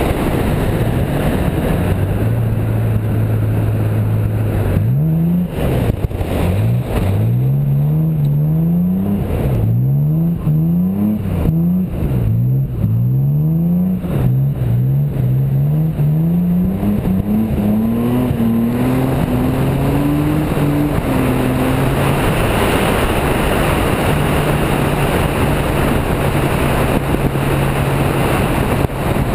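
BMW E28 engine driving on a wet road. It runs steadily at first, then revs up and down over and over for several seconds, then climbs in pitch as the car accelerates. It ends in a steady cruise under rising road and wind noise.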